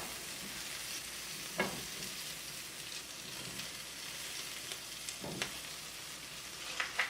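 Pancakes frying in butter in a hot skillet: a steady sizzle, with a few light knocks about a second and a half in, around five seconds in and near the end.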